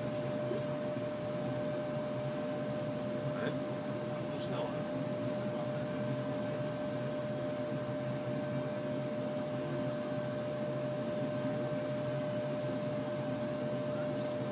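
Magnetic stirring plate running steadily, a constant motor hum with one steady tone as it spins the stir bar in the beaker. A few faint clicks come near the end.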